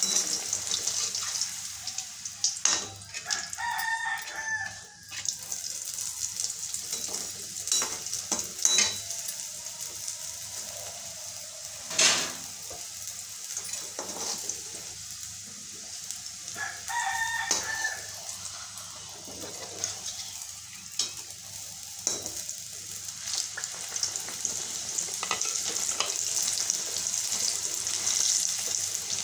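Dal puri deep-frying in hot oil in an iron kadai, a steady sizzle with the slotted metal spoon scraping and clicking against the pan, the loudest click about twelve seconds in. A short, drawn-out pitched call sounds twice in the background, a few seconds in and again past the halfway point.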